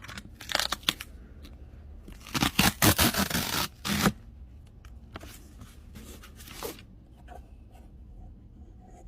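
Packaging being torn and rustled open by hand, in several bursts, the loudest a run of tearing from about two to four seconds in.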